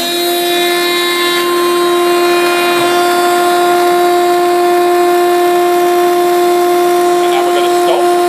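Knapp planer-jointer's three-phase motor and cutterhead running at full speed, a loud, steady whine on one held pitch.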